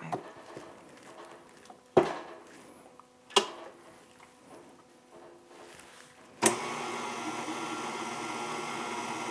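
Two sharp clicks as the stand mixer's paddle attachment is fitted and the mixer head is lowered into place. About six and a half seconds in, the mixer's motor switches on and runs steadily, the paddle beating thick cookie dough.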